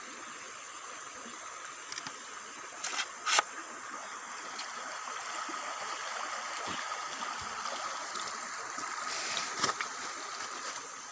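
River water running steadily, with a few short splashes about three seconds in and again near the end.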